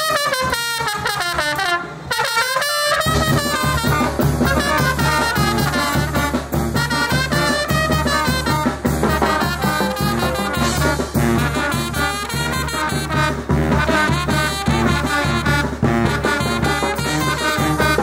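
Mexican brass band playing a chilena. Trumpets open alone with a falling then rising run, and about three seconds in the full band comes in with trombones, a low bass line and a steady beat.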